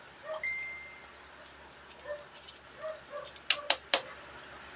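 Coins clicking and clinking against each other as they are handled and counted, with three sharp clinks in quick succession near the end.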